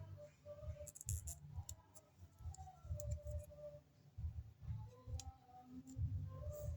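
Hands handling paper close to the microphone: scattered sharp clicks and irregular soft low thumps, typical of a paper blind bag being opened and its contents handled.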